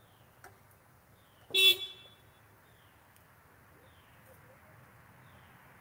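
A single short car horn toot about one and a half seconds in, against a quiet outdoor background with faint, regularly repeating chirps.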